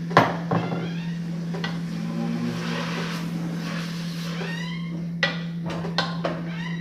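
Cooking clatter of a pot and utensils: a sharp knock early on, a few lighter clicks, and some stirring and pouring noise, over a steady low hum.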